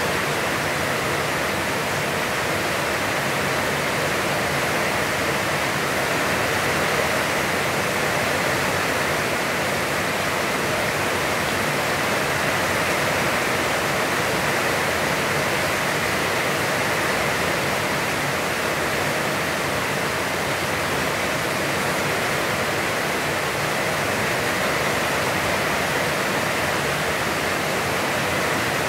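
Heavy, constant rain falling, an even, unbroken hiss.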